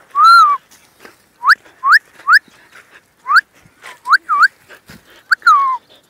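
A small dog whining and yelping with excitement: about ten short, high-pitched whines, most rising in pitch, the first longer and loudest, the last one falling away.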